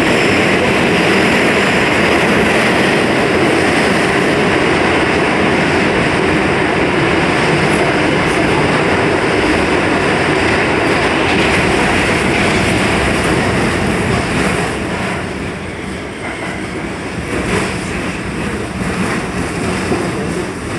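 R46 subway car running at speed through a tunnel, heard from inside the car: a loud, steady rumble of wheels on rail. About fifteen seconds in, the noise drops as the train pulls into a station, with scattered wheel clicks.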